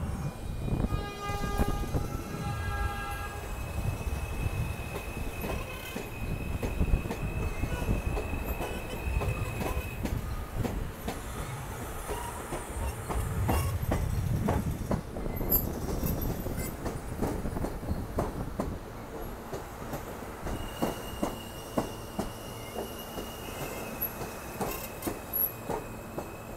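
R160-series subway train running along the near track, wheels clicking over the rail joints over a low rumble. Near the start there is a short run of stepped tones, and a high steady whine comes and goes.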